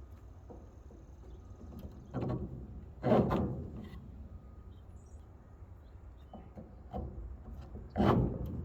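A few knocks and thumps from handling and fitting the trailer's side boards and bolts, the loudest about three seconds in and another near the end, over a low steady rumble.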